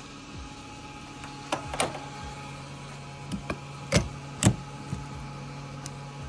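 Fuel station pump humming steadily while petrol is dispensed through the nozzle into a car's tank. A few sharp clicks and knocks, the loudest two about four seconds in, come from handling the nozzle at the filler.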